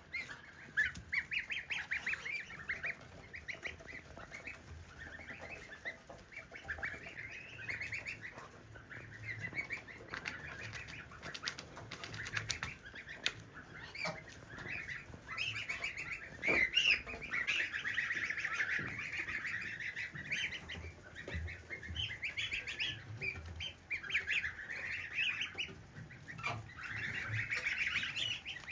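A flock of domestic geese with goslings at their feed: the goslings peep in a constant stream of short, high chirps, with scattered short clicks.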